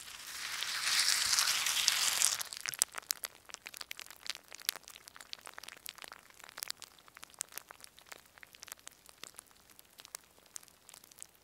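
End-screen transition sound effect: a burst of hissing static for about two seconds, then faint, scattered crackles and clicks.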